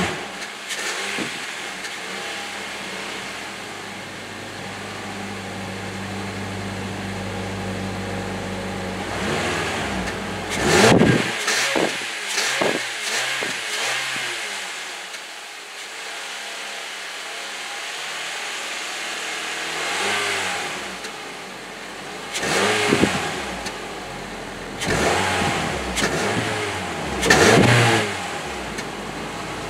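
Exhaust of a 9th-generation Honda heard at the muffler-equipped tailpipe, idling with a steady hum. It is broken by quick throttle blips that rise and fall: one about a third of the way in, a couple soon after, and several more close together near the end.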